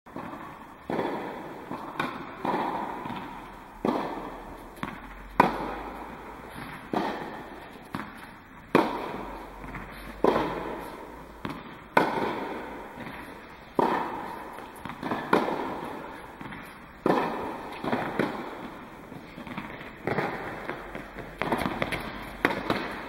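Tennis ball struck by a racket again and again, a sharp pop every one and a half to two seconds, each hit echoing in an indoor tennis hall.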